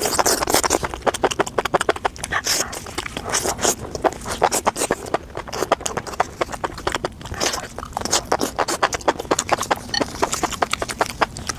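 Close-up chewing and biting of crunchy fried food, with dense irregular crunches and crackles throughout.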